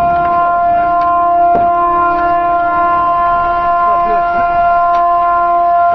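A horn sounding one long, steady, unbroken note as a tanker hull slides down the slipway into the sea, the traditional salute at a ship launch.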